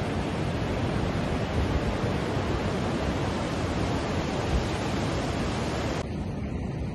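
Pacific Ocean surf breaking and washing up a sand beach: a steady rushing hiss. About six seconds in, the sound changes abruptly, losing most of its high hiss and leaving a lower, softer wash of water.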